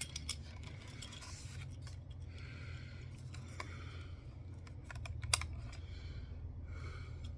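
Scattered small clicks and short scrapes of hard plastic parts being handled on an old camcorder and its accessories, over a steady low hum.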